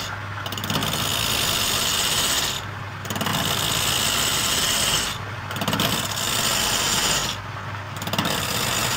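Wood lathe with a hand chisel cutting grooves into a spinning wooden cylinder: a hissing scrape that comes in stretches of about two seconds and breaks off briefly between cuts, about four times, over the steady hum of the lathe motor.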